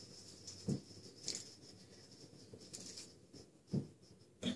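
Four faint, brief rustles and brushes of a hand against a knit sweater and a phone's earphone cable, over quiet room tone.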